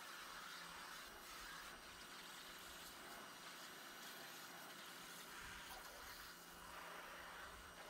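Portland 1,750 PSI electric pressure washer spraying water, heard as a faint, steady hiss with a low motor hum underneath.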